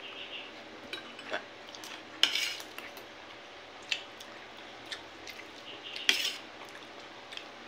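Metal spoon and fork clinking and scraping against a plate while eating, several short scattered clinks, the loudest about two and six seconds in.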